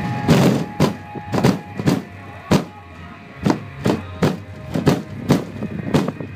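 Bass-heavy music from a van's system of sixteen Sundown SA-15 15-inch subwoofers, heard from outside at the windshield. A steady low bass tone runs underneath, and sharp slaps and rattles come about twice a second, uneven in strength, on the bass hits.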